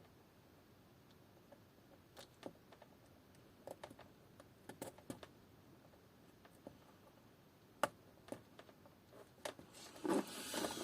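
Faint, scattered small clicks and taps of hand tools against a key fob circuit board while a micro push-button switch is desoldered and worked loose, with a short rustle near the end.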